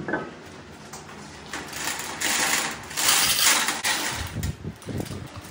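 Manual lathe at work on metal: a hissing, scraping cutting noise that builds about a second and a half in and is loudest in the middle, then a few low knocks near the end.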